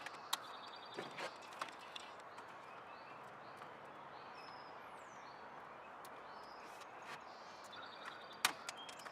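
Sharp clicks and knocks of plastic trim panel clips being pried and worked loose on an MR2 Spyder's interior trim, a few in the first couple of seconds and a louder one near the end, over a steady background hiss with faint birds chirping in the middle.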